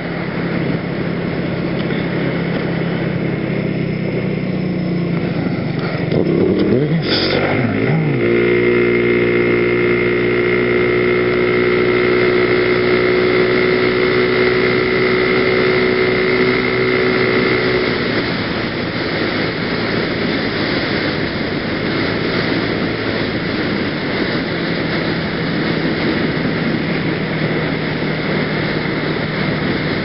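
Genuine Buddy 125 scooter's single-cylinder four-stroke engine running under way, with a steady rush of wind and road noise on the helmet camera. About seven seconds in the engine revs up, holds one steady pitch for about ten seconds, then eases off and sinks under the wind noise.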